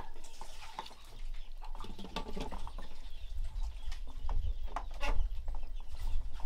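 Small scattered taps and clicks of people eating from bowls and a pot, with a few short animal calls and a low rumble that grows louder near the end.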